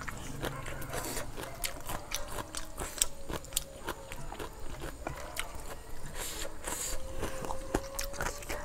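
Close-up eating sounds: chewing and crunching of spicy Lao papaya salad, with many small wet mouth clicks.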